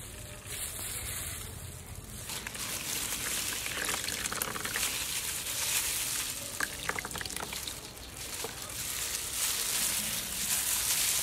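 Hands in plastic bags squeezing liquid out so that it trickles and drips into a bowl, then working flaked fish flesh in a steel bowl. The sound grows louder about two seconds in, with a short run of small clicks and drips partway through.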